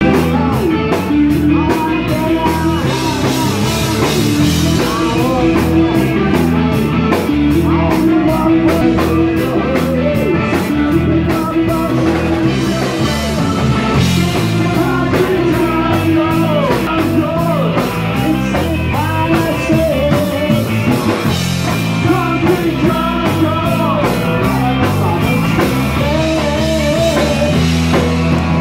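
A skabilly band playing live and amplified: saxophone, electric guitar and drum kit over a moving bass line, with a fast, steady beat.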